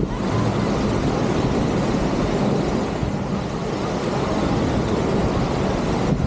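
Steady, loud rumble of wind buffeting the camera's microphone, mixed with the wash of surf.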